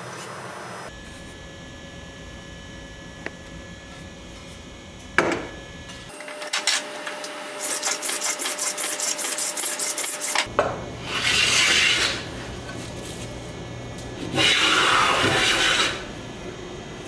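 Restored antique hand plane cutting shavings from a board held in a vise: first a quick run of short rasping strokes, then two longer, louder passes, each about a second long.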